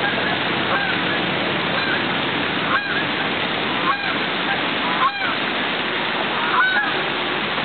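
Geese honking repeatedly, short arching honks about once a second with several louder ones in the middle, over the steady splashing of a lake fountain.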